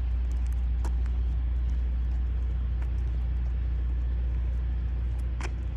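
Steady low outdoor rumble with a few faint brief ticks.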